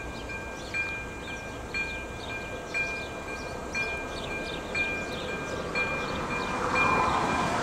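Railway level-crossing warning bell (AŽD ZV02 electronic bell) ringing a repeating two-tone chime about once a second, signalling that a train is approaching. Near the end a rumble grows louder as the train draws near.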